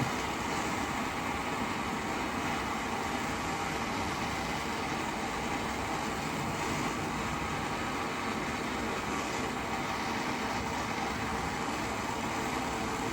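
Heat gun blowing steadily, a constant rushing hiss, heating a connecting rod's small end so it expands enough to take a press-fit wrist pin.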